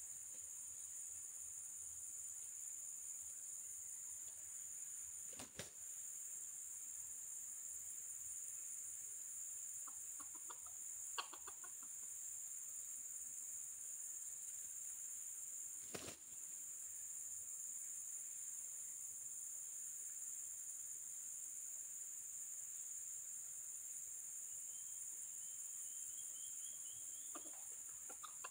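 Steady high-pitched insect drone, with short runs of rooster clucks about ten seconds in and again at the very end. Two sharp knocks, about five and sixteen seconds in.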